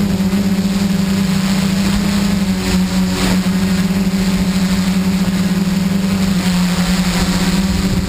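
Xaircraft X650 quadcopter's motors and propellers humming steadily in flight, heard close up from the camera mounted on the craft, with a brief rush of noise about three seconds in.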